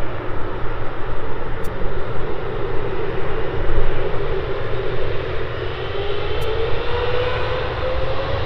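Boeing 777 freighter's twin GE90 turbofan engines running on the runway as the take-off begins, a steady rumble with a whine that rises in pitch over the last few seconds as the engines spool up.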